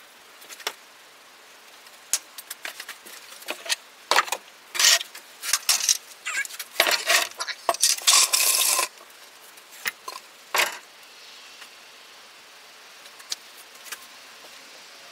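Hard objects being handled and set down on a cluttered workbench: a run of clinks, knocks and clatters, thickest from about four to nine seconds in, with a couple more knocks near eleven seconds, then only a steady low hiss.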